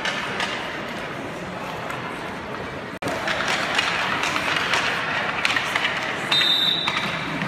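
Indoor ice rink ambience during hockey drills: skates scraping and sticks clacking on the ice amid distant voices, in an echoing arena. The sound cuts out for an instant about three seconds in and is louder after, and a short high whistle blast sounds near the end.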